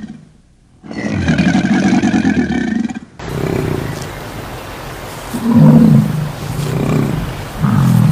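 Animal calls from two different recordings. First comes one long, loud, pitched call lasting about two seconds. Then, after an abrupt change of recording, a series of short, low calls about a second apart.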